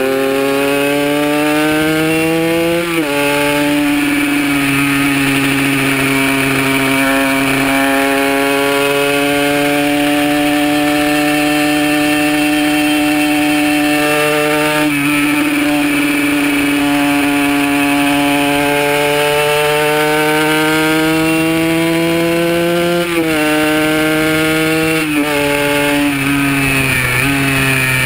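Kawasaki KR150 two-stroke single-cylinder engine under hard acceleration, recorded onboard. Its pitch climbs slowly through each gear, drops sharply at an upshift about three seconds in and again near the middle, then falls in three quick steps near the end as the rider downshifts.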